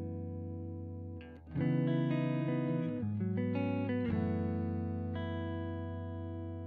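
Background music: guitar chords ringing out, a held chord dying away before a new chord comes in about a second and a half in, with further chord changes near three and four seconds.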